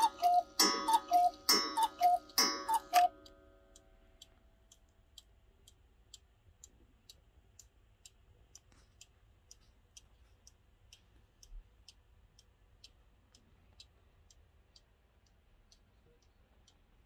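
Romba & Haas 8-day mechanical cuckoo clock sounding its two-note cuckoo call from its bellows pipes a few times in a row, stopping about three seconds in. After that comes the faint, steady ticking of the movement.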